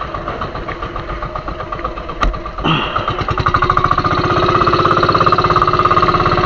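Small single-cylinder engine of a bangka fishing boat chugging at low speed, then speeding up and growing louder about three seconds in and running on steadily at the higher speed. A single sharp knock comes just before the speed-up.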